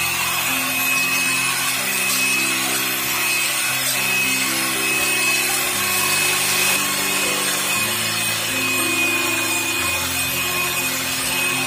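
Electric hand mixer running steadily at high speed with a thin whine, its beaters whisking eggs and sugar in a steel bowl until the mixture turns pale and stiff. Piano music plays underneath.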